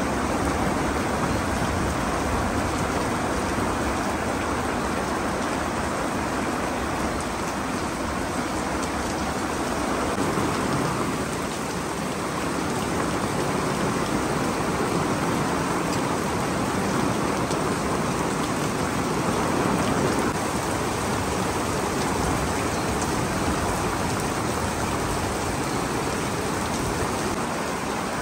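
Steady rain falling on the ground and surroundings, an even hiss of rainfall.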